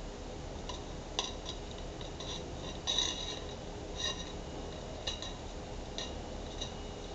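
A tool clinking and tapping against the inside of a round glass florarium bowl while substrate and fabric liner are pushed into place: about ten light, irregular clinks that ring briefly, the loudest about three seconds in.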